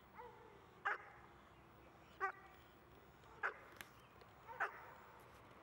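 Six-month-old German Shepherd puppy barking at the helper in protection training: four sharp single barks, about one every second and a bit.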